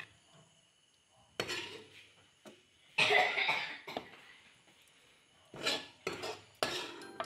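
Metal spatula scraping and clinking against a wok and a ceramic plate while serving food, in several short bursts, the longest and loudest about three seconds in.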